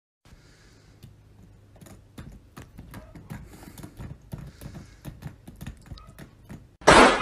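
Plastic wall light switch clicking over and over as a cat bites and flips it, in irregular clicks that come faster and louder after the first couple of seconds. Near the end a sudden loud pitched cry cuts in for under a second.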